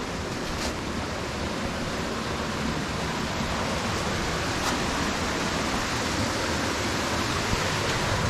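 Steady rushing of water falling and running over rock, growing slightly louder toward the end.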